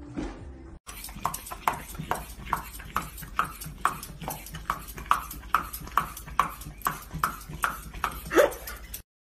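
Dog whimpering in short, high yelps, about two or three a second in a steady rhythm, with a longer, lower whine near the end.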